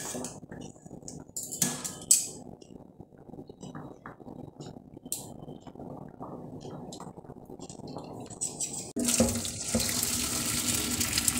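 Metal utensil clinking against a steel cooking pot, two sharp clinks about two seconds in, over a low wet rustle. About nine seconds in, the starchy cooking water of parboiled basmati rice starts pouring from the pot into a stainless-steel sink, a sudden steady rush of splashing water.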